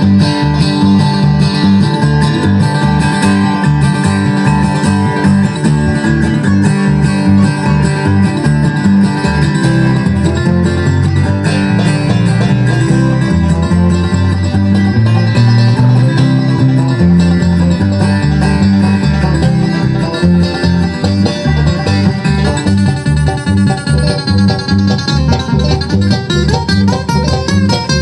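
Live bluegrass instrumental: banjo and guitar picking fast over a moving bass line.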